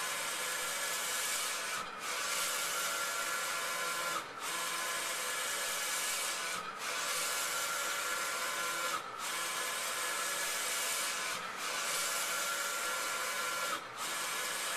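Large-format inkjet printer printing a banner: the print-head carriage runs back and forth with a steady high whirring hiss. The sound drops briefly about every two and a half seconds at the end of each pass.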